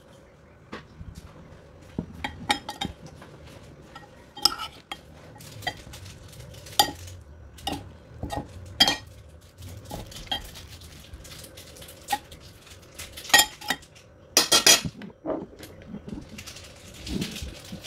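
A utensil tossing dressed salad in a ceramic bowl, knocking and clinking irregularly against the bowl's side, with soft scraping. The loudest clinks come about two-thirds of the way through.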